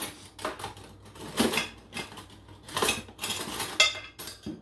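Metal cutlery clattering and clinking in a series of irregular rattles, as utensils are rummaged through in search of a spoon.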